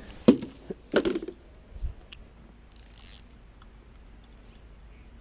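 A few short knocks and thumps on a wooden dock as a person moves about with a fishing rod: a sharp knock about a third of a second in, a louder cluster about a second in, and a dull low thump near two seconds, then quiet handling.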